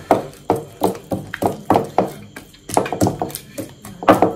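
Fufu dough being pressed and folded with a utensil against a clay bowl, working it smooth: a steady run of thumps and slaps, about two to three a second.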